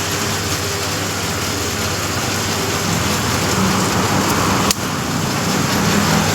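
Bamboo satay skewer machine running: a steady motor hum under a loud, even hiss, with one sharp click about four and a half seconds in.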